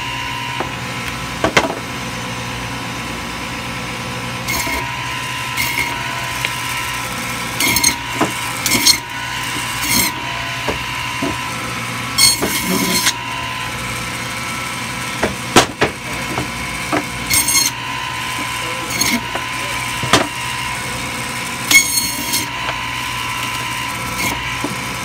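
Butcher's meat band saw running with a steady hum, its blade rasping through bone-in meat in short cuts every one to three seconds as pieces are pushed through, some cuts with a high screech.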